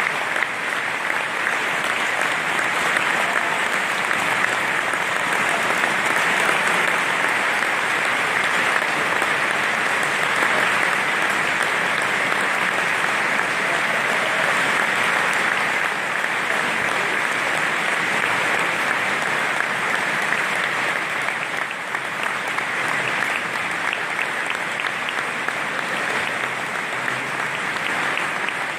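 Large concert-hall audience applauding, a dense, steady clapping that keeps the same level.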